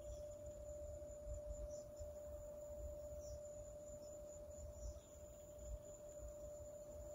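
A faint steady, unchanging tone over an uneven low rumble, with a few faint short high chirps.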